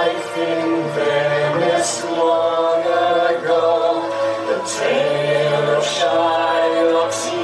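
Music with a choir singing: several voices holding long notes together and moving between them, with sharp hissing consonants a few times.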